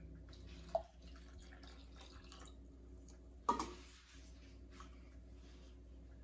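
Liquid poured from a plastic cup into the crater of a dough volcano, a faint trickling and dripping. Two short sounds break in, about a second in and again halfway through, the second the louder.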